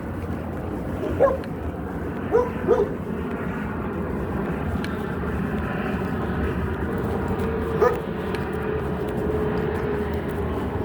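A dog barking: four short barks, three close together in the first few seconds and one more near the end. Underneath is a steady drone, with a steady hum joining about halfway through.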